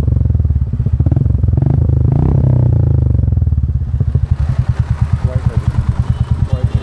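Royal Enfield Classic 350's single-cylinder engine running through a Globe Exploder aftermarket exhaust with the dB killer removed. It is revved up for the first few seconds, then drops back to a steady, loud pulsing idle.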